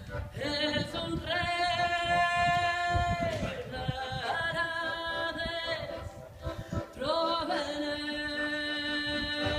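A woman singing long held notes, accompanying herself on a diatonic button accordion.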